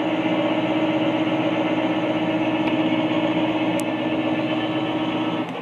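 Metal lathe running with the half-nut locked onto the lead screw, the carriage feeding under power; a steady gear whine that stops right at the end.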